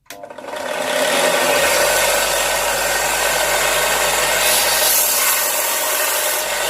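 A Parkside combination bench grinder and belt sander running while a steel vice jaw is held against its sanding belt, giving a loud, steady abrasive grinding rasp that cuts off abruptly near the end.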